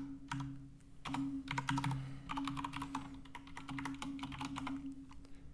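Typing on a computer keyboard: irregular runs of key clicks, thinning out near the end, over a steady low hum.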